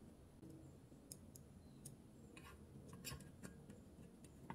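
Faint scattered clicks and taps of fingers and a screwdriver working on the metal thermostat terminals and wires of an opened electric clothes iron, over near silence, with a small run of clicks about two and a half to three seconds in.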